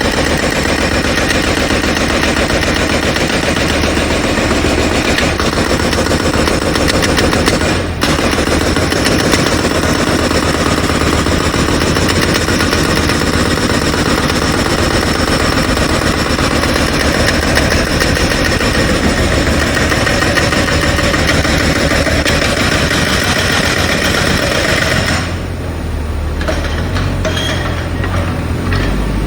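Jackhammer breaking up the ground: a loud, fast, continuous hammering with a short break about 8 seconds in. Near the end the hammering stops and a low engine rumble carries on.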